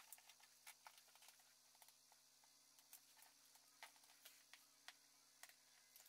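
Near silence with faint, irregular small clicks and ticks of hands handling adhesive pads and paper bits on a laminate floor.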